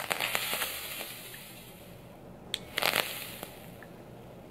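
Overdriven dual-core coil in a 30mm rebuildable dripping atomizer, built to about 0.22 ohms, crackling and sizzling as e-liquid spits and pops off it under extreme power. One burst of crackle at the start dies away over about a second, a sharp click follows, then a second short burst of crackle comes about three seconds in.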